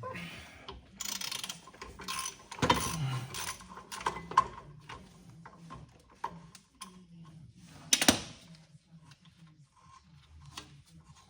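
Hand tools working on a rear brake caliper: irregular metallic clicks and clanks, with short louder rushing bursts about a second in, around three seconds in, and a sharp one about eight seconds in.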